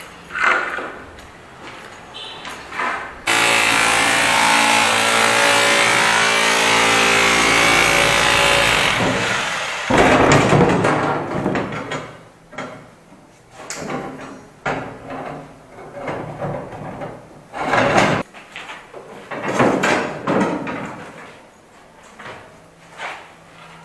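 A hand-held electric cutting tool with a disc, angle-grinder type, starts abruptly about three seconds in and runs steadily for about six seconds before winding down. It is followed by a string of irregular knocks and clatters of tools and metal being handled.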